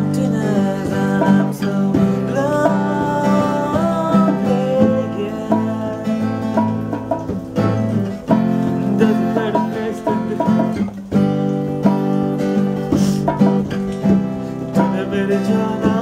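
Acoustic guitar strummed in steady chords, with a man singing along in parts. The playing breaks briefly twice, about halfway through.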